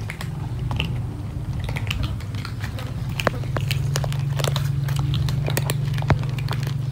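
Many cats crunching dry kibble together, a dense patter of small crunches and clicks from many mouths, over a steady low hum.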